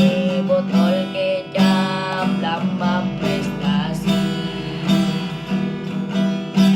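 Acoustic guitar strummed in a steady rhythm, playing chords without singing.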